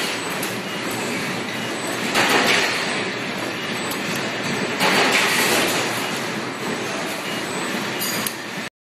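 Steady rushing machine noise from a full-electric servo press brake at work in a sheet-metal shop, swelling louder three times, about every two and a half seconds, as parts go through the bends. It cuts off suddenly near the end.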